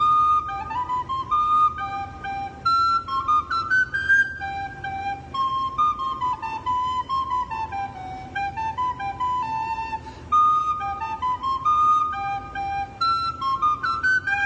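Tin whistle playing a simple melody of single notes that step and slide between pitches, with a short break about ten seconds in.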